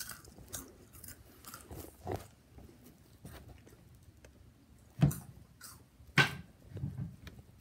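Chewing and crunching cheesy chips (orange cheese curls) close to the microphone, with two louder sharp sounds about five and six seconds in.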